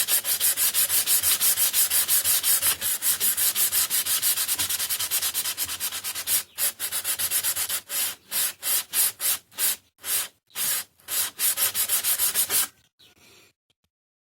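Reed valve housing from a Voskhod 3M01 being lapped by hand, rubbed back and forth on very fine sandpaper laid flat on thick glass, in quick rhythmic strokes that grow slower and more separate about halfway through and stop near the end. It is flattening the worn face where the valve petals seat, so that they close tightly again.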